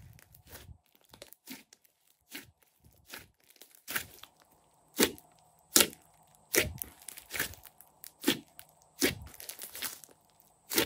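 Hands kneading, pressing and stretching a large mass of thick glossy slime mixed with clay, giving irregular wet squishes and crackling pops as air pockets burst; they grow louder about four seconds in, the loudest coming about five and six seconds in.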